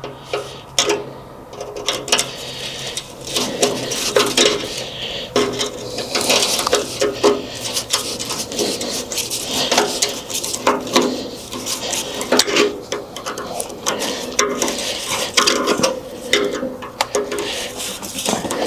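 Wrench clinking and scraping against metal as a fuel-line compression fitting is tightened: a long run of irregular metallic clicks and rattles.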